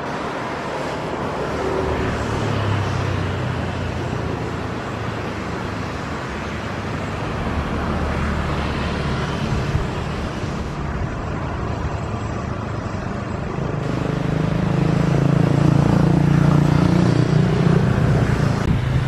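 Steady outdoor vehicle engine rumble with wind-like noise, a low engine drone swelling louder toward the end.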